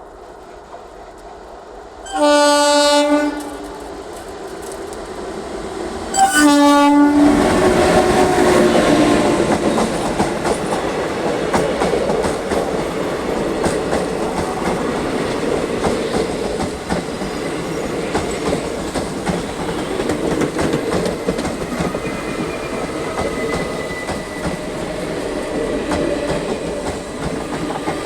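Twin-tone horn of a WAG-9HC electric locomotive, two short loud blasts about four seconds apart. Right after the second blast the train passes, its wheels clattering steadily over the rail joints.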